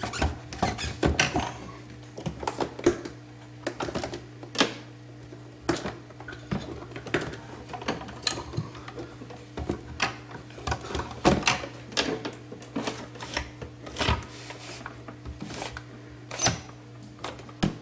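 Irregular plastic clicks and knocks as a new Samsung ice maker fan and auger assembly is worked into its housing in the refrigerator, over a steady low hum.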